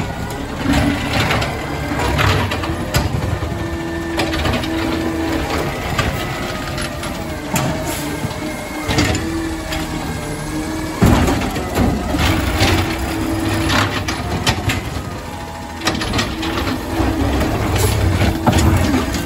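Garbage truck at work: its diesel engine running and rising in pitch with the whine of the hydraulics, with repeated clanks and bangs from the lifting arm and the carts.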